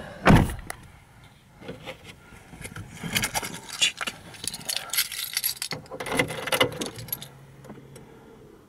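A single heavy thump about a second in, then car keys jangling and scraping in clusters as the key is put into the ignition and turned to switch on the ignition.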